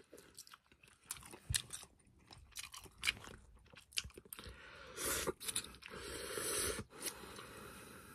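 Slurping and chewing ramen noodles: wet mouth clicks and smacks throughout, with a longer slurp of noodles about five seconds in lasting a second or two.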